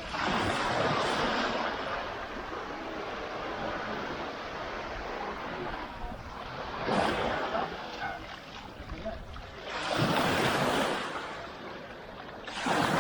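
Surf on a sandy beach: waves breaking and washing up the sand in surges, with big swells right at the start, around ten seconds in and again near the end, and a smaller one near seven seconds.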